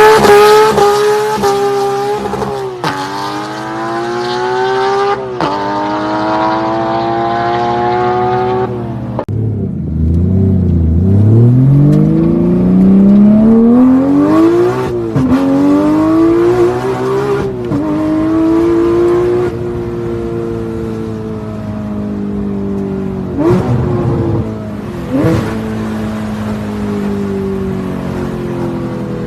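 Porsche 911 GT3's naturally aspirated flat-six accelerating hard through the gears of its manual gearbox. The engine note climbs in each gear and drops sharply at each upshift, about half a dozen times. It then settles to a steady drone with a few short blips of revs near the end.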